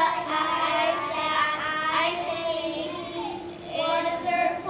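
A group of children singing a praise song together.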